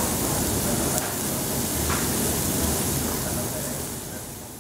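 Pork and onion kebabs sizzling steadily on a hot, oiled ridged griddle pan over a gas stove, with a faint pop or two, fading away near the end.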